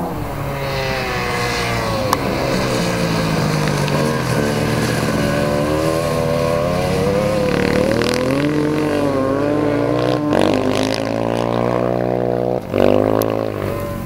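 Motorcycle engine running on frozen water, its revs rising and falling again and again as the bike rides over the ice, over a steadier lower engine note; near the end the sound drops away for a moment and then revs up sharply.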